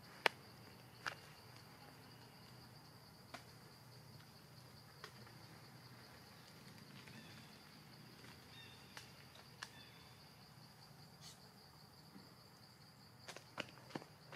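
Steady high-pitched insect drone, with scattered sharp clicks through it: the loudest about a quarter second in, and several close together near the end.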